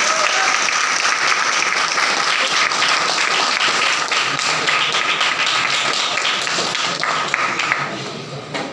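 Audience of students applauding a prize winner, a dense steady clapping that dies down near the end.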